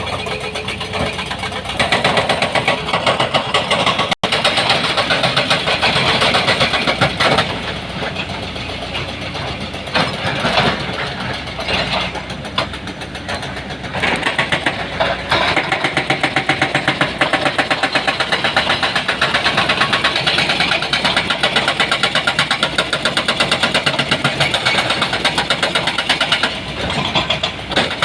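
Heavy diesel engine of earthmoving equipment running, with a rapid, even pulsing, briefly cut off about four seconds in.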